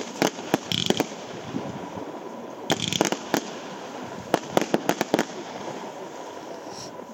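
Blackboxx 'Schnelle Welle' category F2 fireworks battery firing: sharp bangs in quick clusters, a few at the start, a rapid run about three seconds in and another about four and a half seconds in. The shots stop shortly after five seconds, as the battery finishes.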